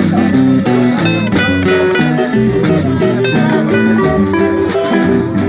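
Live acoustic music with plucked guitars playing an instrumental passage, no singing.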